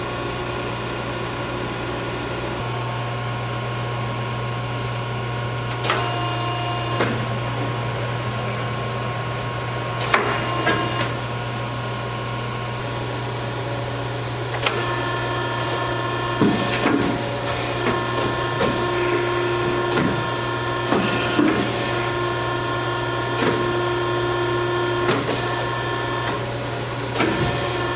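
Hydraulic pump unit of a Pines i-Line CNC 038 tube bender running with a steady hum. Occasional clicks come early, and from about halfway on a whine joins in with a run of knocks and clunks as the bender's mechanism works.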